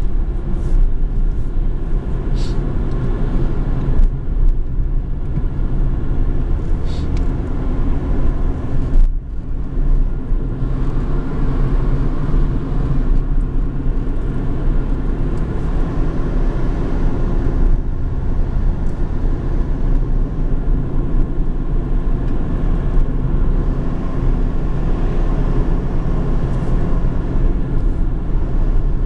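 Car engine and tyre road noise heard from inside the cabin while driving, a steady low rumble, with a few brief clicks in the first several seconds.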